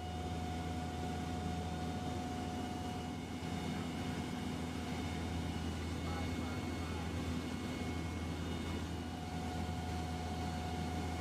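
Steady drone of a US Coast Guard aircraft's engines heard inside the cockpit: a deep hum with several steady whining tones over it, unchanging throughout.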